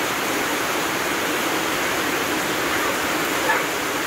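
Heavy rain pouring down, with water streaming off a roof edge onto wet ground: a steady rushing hiss.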